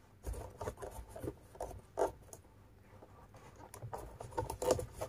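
Crochet hook and thick Egyptian macramé cord rubbing and scratching as loops are pulled through the stitches, in small irregular rustles and clicks.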